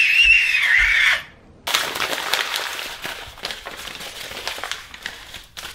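A toddler's high-pitched shriek, wavering and falling, lasting about a second. After a short pause comes a sheet of crumpled paper being crinkled and opened out by hand, a dry crackle of many small ticks.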